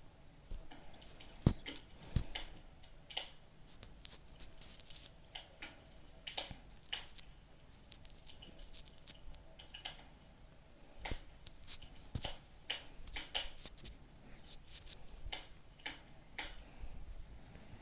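Wood fire crackling, with irregular sharp pops and snaps, one much louder pop about one and a half seconds in.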